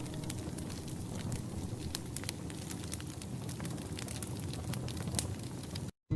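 Wood fire burning in an old wood-burning stove: a dense run of sharp crackles and pops over a steady hiss, cut off abruptly near the end.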